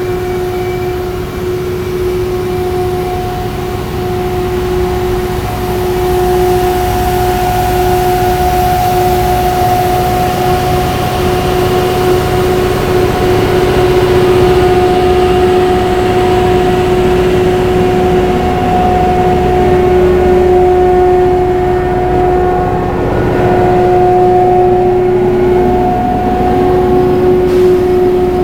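Rail grinding train grinding the rails: a loud, steady whine held on two pitches over a dense rushing grind. The pitch bends briefly a little past two-thirds of the way through as the machine moves along.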